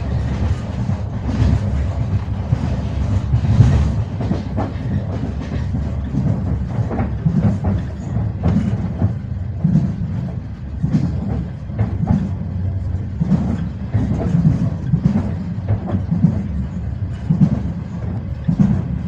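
Passenger train wheels clattering over rail joints as the train runs along, with repeated knocks over a steady low rumble.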